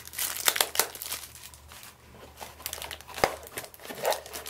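Clear plastic bag crinkling in irregular crackles as a phone holster sealed in it is handled, with one sharp click about three seconds in.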